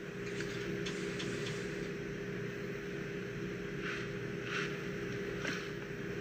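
Steady mechanical hum inside a car, with a few brief rustling noises about four seconds in.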